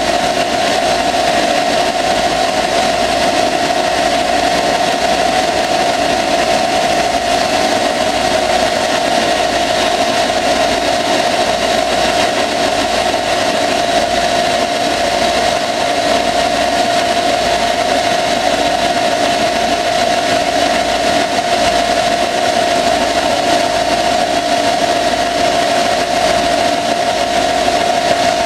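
CNC lathe turning a steel mower axle under flood coolant: the spindle runs and the tool cuts steadily, with a strong steady whine over a hiss of coolant spray.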